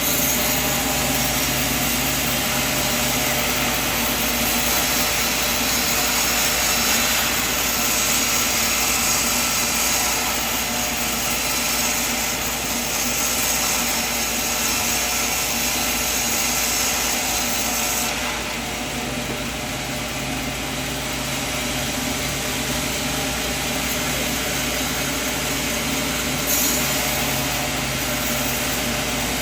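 Band sawmill running and sawing through timber: a steady machine noise with a high hiss. The hiss drops away for a few seconds about two-thirds of the way in.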